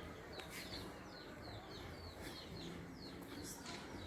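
Small birds chirping faintly: a run of short, high notes, each sliding downward, several a second, over a faint low outdoor background.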